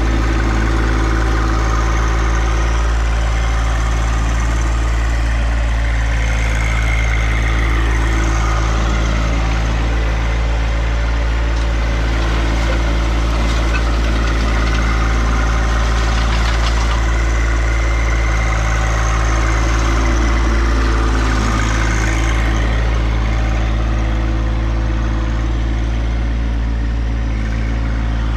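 John Deere 2025R compact tractor's three-cylinder diesel engine running steadily while the loader-mounted landscape rake pushes leaves, with a higher whine that rises and falls.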